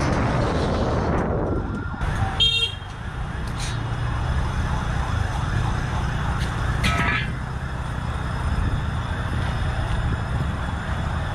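Steady low outdoor rumble, with a rushing noise that fades in the first second or so, and two brief vehicle-horn toots, about two and a half and seven seconds in.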